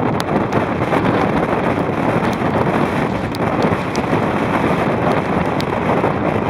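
Strong storm wind buffeting the microphone in a loud, steady rush, with a few faint ticks over it.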